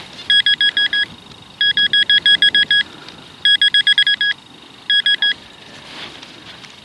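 Handheld metal-detecting pinpointer beeping rapidly in four bursts of about seven beeps a second as its probe is pushed through dug soil. The beeping signals metal close to the probe tip.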